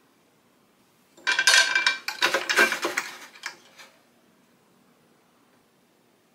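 Hard metal objects clattering and rattling as they are handled, a busy burst of about two and a half seconds starting about a second in, with a slight metallic ring.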